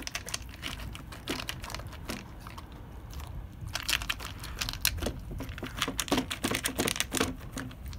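Dog eating from a maze slow-feeder dish: irregular clicking and crunching as he licks and chews food out of the maze, the clicks coming thicker and faster from about the middle on.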